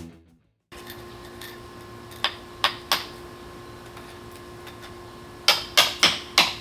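Sledgehammer blows on a chisel blade chipping a thin coating off a concrete slab: three sharp strikes about two seconds in, then four quicker ones near the end.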